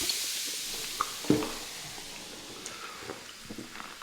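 A canned drink, just opened and poured, fizzing as a steady hiss that slowly dies away, with a couple of light knocks about a second in.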